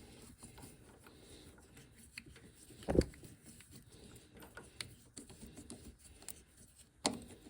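Quiet clicks and rattles of hand tools being handled, with a sharp louder knock about three seconds in and another near the end.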